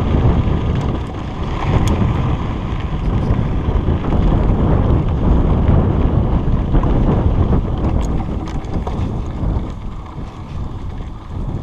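Wind buffeting and handling rumble on a chest-mounted GoPro Hero 3+ moving along a trail: a steady, loud rush heaviest in the low end, with a couple of faint clicks and easing off somewhat near the end.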